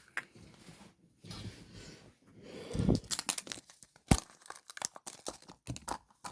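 Wrapper of a surprise toy being torn open and crinkled by hand, with a dull thump just before three seconds in and a sharp click about a second later, followed by smaller clicks.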